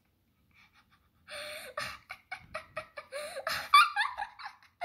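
Short, breathy vocal sounds come in a quick string starting a little over a second in, their pitch sliding up and down, loudest a little before the end.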